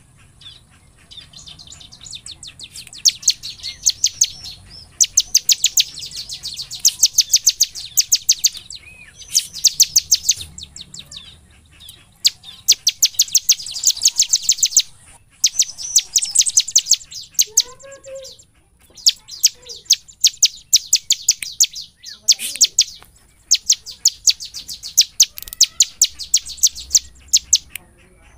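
Bar-winged prinia (ciblek) in full song: rapid runs of sharp, high notes, several a second, in bursts of one to three seconds with short pauses between.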